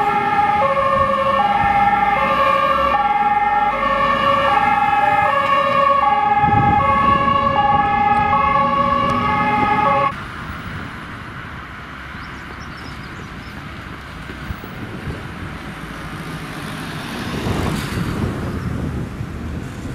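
German fire engine's two-tone siren (Martinshorn), alternating a high and a low tone about every three quarters of a second over engine noise. It cuts off suddenly about halfway through, leaving a quieter rumble of wind and traffic that grows a little louder near the end.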